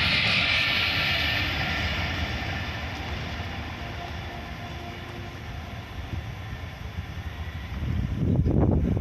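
Train running past, its steady rail and wheel noise fading away as it recedes. A louder, uneven low rumble starts near the end.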